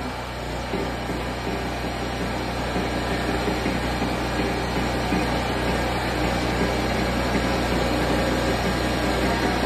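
Turbo Tubs carnival ride running with its tubs turning: a steady mechanical hum and rumble that grows slightly louder.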